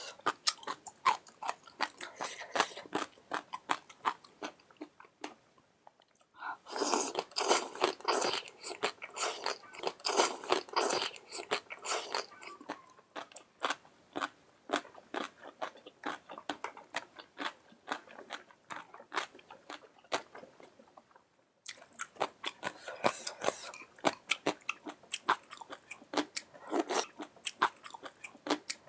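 Close-up chewing and crunching of pan-fried pork skin: many quick bites and chews, with two short pauses.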